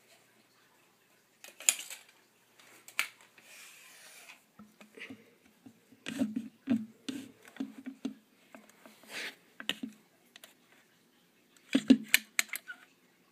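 Hands and the phone rummaging in a hermit crab tank's sand and coconut-fibre substrate while its depth is measured: scraping and rubbing with a few sharp clicks, and a run of dull thumps about halfway through.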